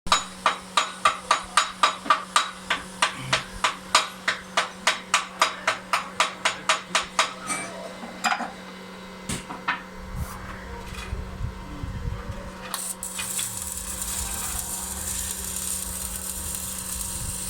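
Hammer blows on metal, evenly spaced at about three to four a second, growing weaker and stopping after about seven seconds, followed by a few single blows. Then a steady hiss over a low rumble starts.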